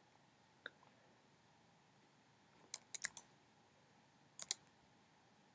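Faint clicks of a computer mouse: one click just under a second in, a quick run of three or four clicks around three seconds in, and a close pair near the end.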